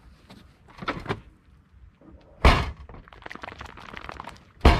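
Footsteps pushing through dry leaf litter and undergrowth: crackling and rustling, with two heavy thudding steps or snapping branches, the loudest near the end.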